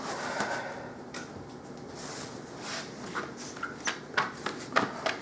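Cloth rubbing over a laptop screen, then a run of light, irregular clicks and knocks from handling the laptop, starting about halfway through.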